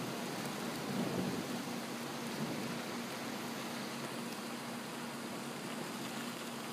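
Heavy thunderstorm rain pouring steadily, with a low rumble of thunder fading away in the first second or so.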